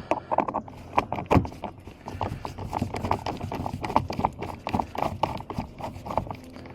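Screwdriver working a door panel screw loose: a quick, uneven run of light clicks and small knocks, several a second.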